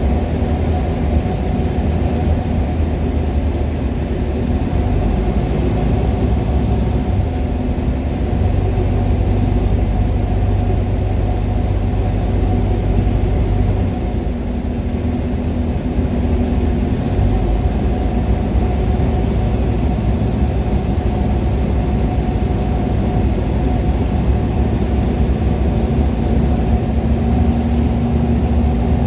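Rotax 912 flat-four engine and propeller of a PS-28 Cruiser light aircraft in flight, a steady drone heard from inside the cabin. The low notes shift slightly a few times partway through.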